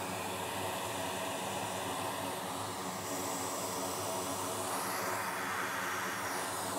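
Steady rushing hiss of an air blower with a motor hum under it, blowing air on a laptop logic board to cool it down.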